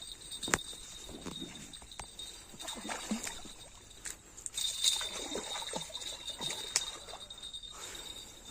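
Water splashing and trickling at a riverbank, with a few sharp clicks and a steady high-pitched whine in the background.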